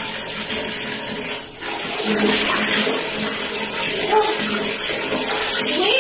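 Water from a tap pouring into a bucket: a steady splashing rush that gets louder about two seconds in.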